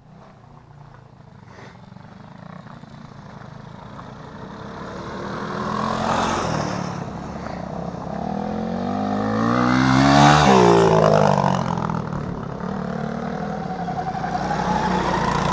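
Small single-cylinder four-stroke youth ATV engine riding by, getting louder as it approaches and passing about ten seconds in with its pitch dropping, then fading away.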